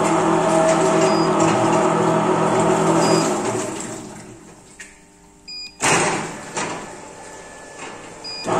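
Homogenizer turbine motor running with a steady hum, switched off about three seconds in and winding down over a couple of seconds, then starting again near the end. Short beeps sound at several points, and a sudden loud noise comes about six seconds in.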